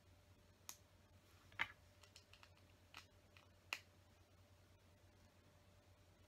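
Small plastic LEGO pieces clicking as they are handled and pressed together: four short, sharp clicks in the first four seconds, otherwise near silence.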